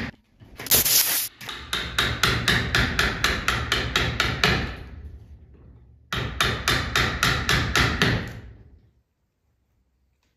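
Hammer rapidly tapping a wood chisel, about five blows a second, as the chisel chops recesses into a bent wooden frame. There are two runs of blows: the first fades away just before the middle, and the second starts about six seconds in and stops near the end.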